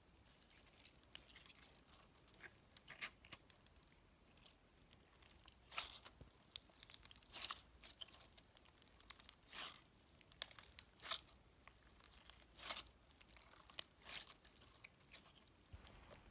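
Store-bought floam slime being worked and pressed, its foam beads giving irregular crunchy crackles, some sharp and louder than the rest.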